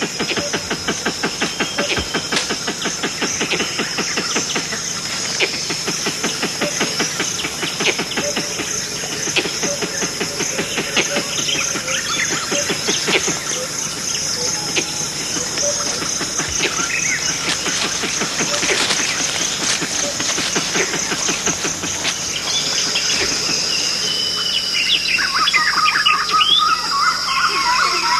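Rainforest insect chorus: a steady high buzzing drone with rapid, dense pulsing. In the last few seconds, birds join in with rising and falling whistled calls.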